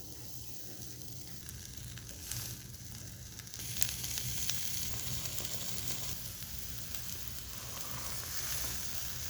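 Omelette frying in a hot pan: a steady sizzle and hiss with small crackles, which gets louder about four seconds in.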